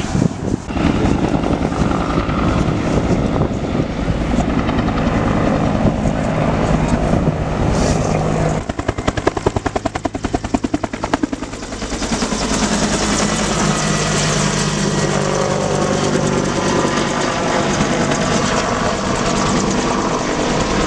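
Firefighting helicopter with a slung water bucket passing low overhead. Its engine drones steadily, and for a few seconds near the middle the rotor blades' fast rhythmic chop stands out.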